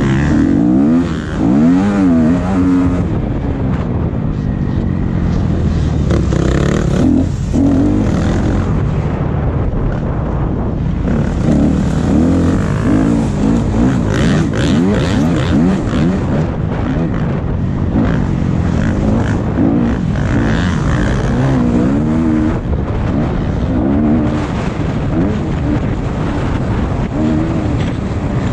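Motocross bike engine revving up and down over and over as it is ridden hard around the track, the pitch rising and dropping every second or two over a constant rush of noise.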